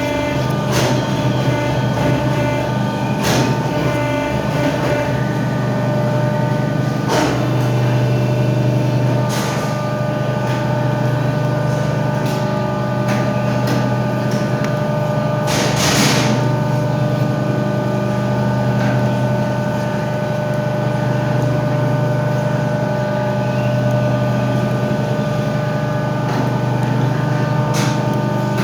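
A machine running at a steady pitch, with sharp knocks now and then; the loudest comes about halfway through.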